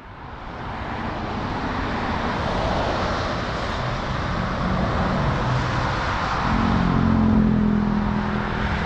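Road traffic: a passing motor vehicle's tyre noise builds over the first couple of seconds, with an engine hum joining and loudest about seven seconds in.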